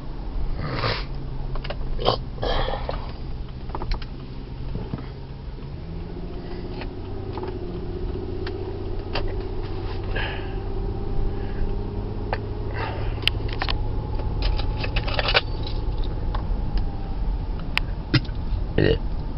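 A man hiccuping: short sharp hiccups every few seconds, several close together near the start and another just before the end, over a steady low engine hum.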